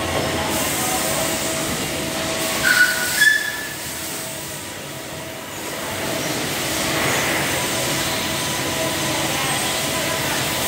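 CNC vertical machining center milling metal under flood coolant: a steady mechanical running sound with spray noise and a few steady tones. Two short, high squeals come about three seconds in, and the sound eases off briefly just after them.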